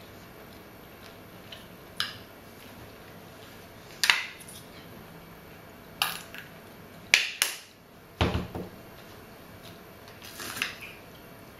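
Short clicks and clinks of a metal spoon against a ceramic pie bowl and a plastic ketchup squeeze bottle being handled, with one duller thump about eight seconds in as the bottle is set down on a wooden table.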